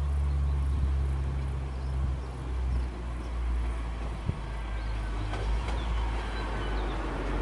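Diesel locomotive engine idling with a steady low hum. Near the end a passing train's running noise faintly builds up over it.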